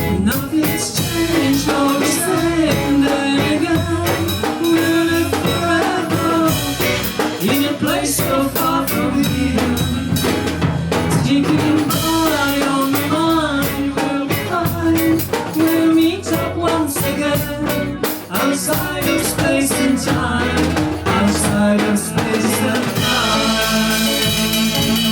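Live band playing a reggae-style tune with drum kit and a weaving melody line; near the end the band settles onto held notes.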